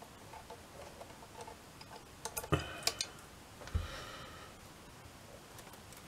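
Faint, scattered clicks and light metallic clinks of small brass clock parts and tools being handled on a torsion clock movement during reassembly. There is a louder cluster of clinks with a brief ring about two and a half seconds in, and another knock about a second later.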